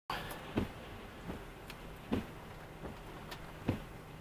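Inside a stopped car's cabin: a faint steady hum with a handful of sharp, irregularly spaced taps on the car, about one every half second to second.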